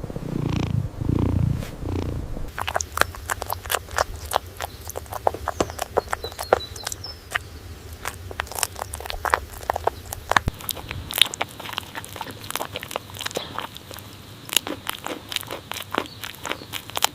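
An animal purring for about the first two seconds, then a long run of irregular crisp clicks and crunches.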